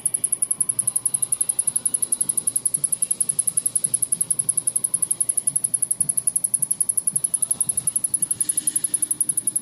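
Rapid, even ticking from a Samsung rear-projection television's power circuitry, about eight ticks a second, high-pitched. It is the sign of a fault in which something is shorting out without blowing the internal fuses, and the set does not fully power up.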